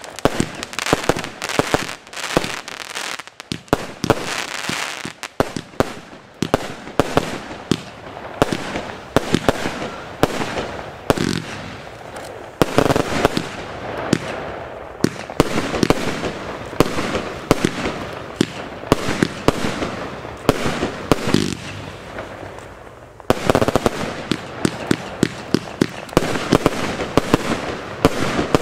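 Lesli 'Morse Code' 100-shot compound fireworks battery firing: a rapid, continuous run of sharp shots and bursts, easing into a short quieter spell about three-quarters of the way through before firing hard again.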